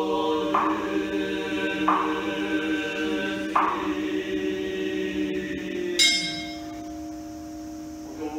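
Buddhist priests chanting a sutra in a steady drone, with a beat struck about every second and a half. About six seconds in, a bowl bell is struck and rings on as the chanting falls away.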